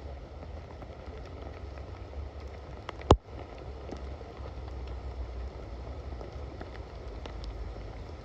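Rain falling, with scattered drops ticking close by over a low steady rumble, and one sharp knock about three seconds in.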